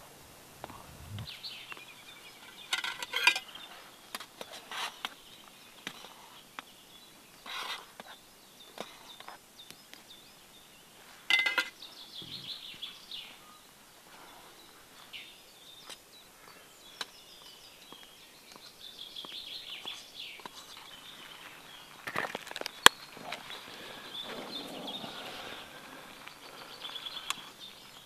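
Birds singing and calling, with a few sharp clinks of a spoon against a metal cook pot while pasta is stirred on a meths stove; the loudest clink comes about 23 seconds in.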